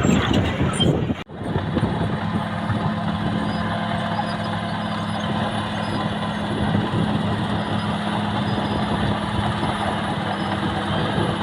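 Diesel engine of a Caterpillar D6R XL bulldozer running steadily. The sound drops out sharply for a moment about a second in, then carries on as a level, even drone.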